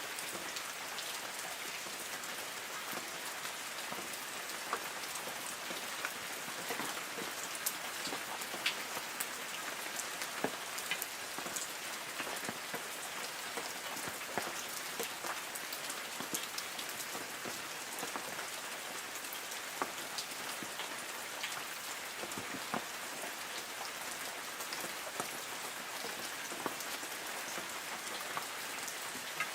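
Light rain falling on forest trees: a steady patter with many distinct drops striking leaves.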